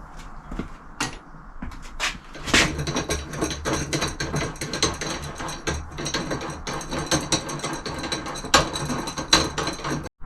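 Cold-cut saw cutting through metal stock. A few knocks and clicks come first, then about two and a half seconds in the blade bites and a continuous rattling, ringing cut runs until it stops abruptly near the end.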